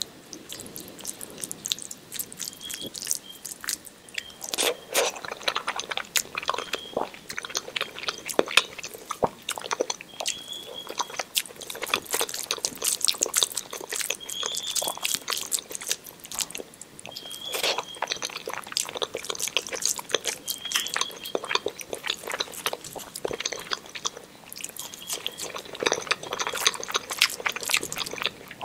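Close-up eating by hand: fingers squishing and mixing rice with dal and mashed potato on a plate, with wet chewing and many small irregular clicks and crackles. A short high chirp recurs every few seconds behind it.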